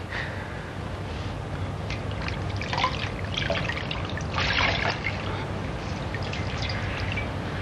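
Water trickling and splashing in a basin of warm water as hands work in it, loudest about four and a half seconds in, over a low steady hum.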